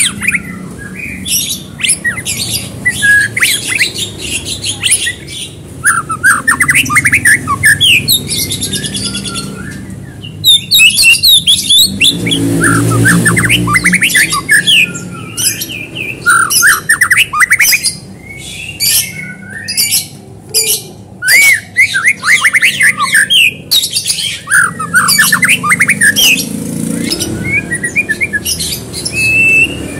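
Caged white-rumped shama (murai batu) singing in full song: a fast, almost unbroken run of varied phrases, with quick sweeping whistles and trills mixed with sharp, harsh rattling notes and only short pauses.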